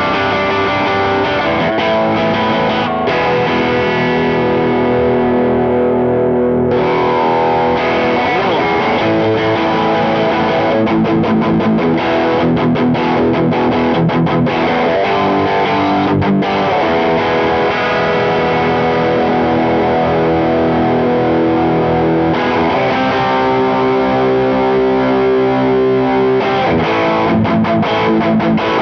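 Fender Jazzmaster electric guitar on its bridge pickup, played through a Fishbone Sun & Moon dual overdrive pedal set for high-gain distortion. Chords are left ringing and fading over the first several seconds, then riffing resumes. From the middle on, both of the pedal's overdrive channels are switched on and stacked.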